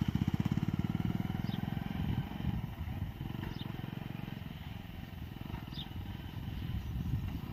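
Motorcycle engine running as the bike pulls away, its putter fading over the first few seconds. A bird gives a short high chirp three times, about two seconds apart.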